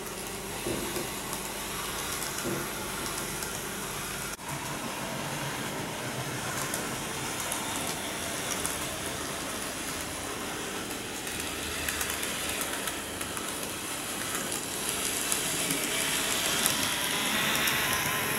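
N-gauge model train with a TOMIX TM-14 power unit running on track: a steady motor whir and wheels rolling on the rails, getting somewhat louder near the end. It is a bit noisy, which the owner puts down to the inexpensive power unit.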